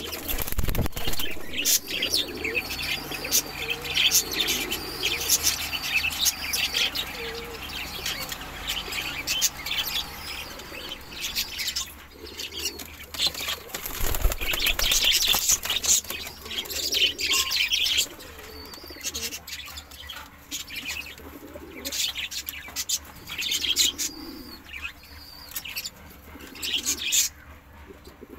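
Pigeons cooing in a wooden loft, low repeated coos, mixed with quick high chirping from small cage birds and bursts of wing flapping.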